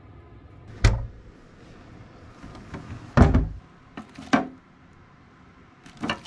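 A small hotel mini fridge's door shuts with a thud about a second in, then a plastic lidded wastebasket is handled with a heavy knock and two lighter clacks.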